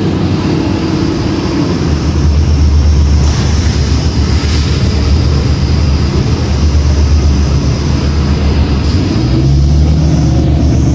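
A 2006 New Flyer D40LF bus's Cummins ISL diesel engine running, with road noise, heard from inside the cabin. The low engine hum eases off briefly twice and climbs in pitch near the end as the engine speeds up.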